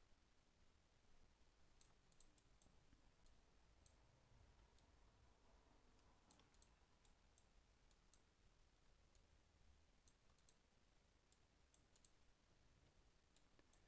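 Near silence with faint computer mouse clicks at irregular intervals, some in quick pairs, as control points are picked and dragged in CAD software; a faint low room hum underneath.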